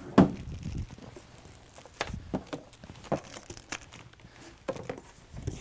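Cardboard boxes and plastic-bagged accessories being handled: a sharp knock just after the start, then scattered irregular knocks and plastic-bag crinkling.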